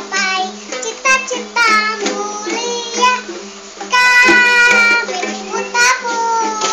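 A young girl sings while strumming a small guitar, holding one long note about four seconds in.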